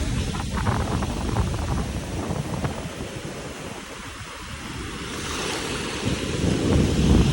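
Strong wind buffeting the microphone over the wash of ocean surf, a rough low rumble that eases a little midway and swells again near the end.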